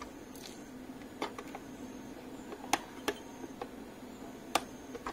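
Half a dozen sharp, irregularly spaced clicks of side cutters snipping the soldered component leads on a circuit board, over a faint steady hum.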